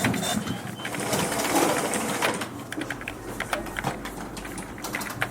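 An office printing machine running with a dense mechanical rattle that eases off about two and a half seconds in, leaving scattered clicks over a low hum.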